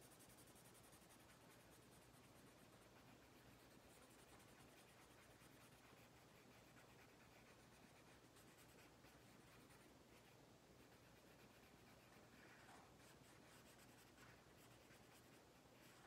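Faint scratching of a black marker on paper as it colours in small filled circles, barely above room tone.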